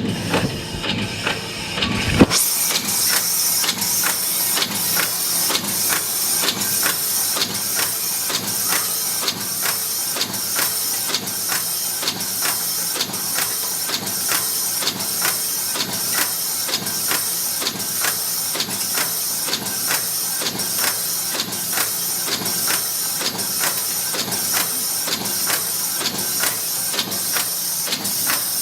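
Yeswin YBF13B6S six-station part former (cold header) running, its press stroke clacking in a steady rhythm of about one and a half strokes a second over a continuous hiss. The rhythm starts about two seconds in.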